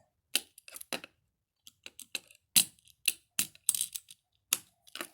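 A handheld fidget toy being worked in the hands, giving sharp irregular clicks, some in quick runs of two or three.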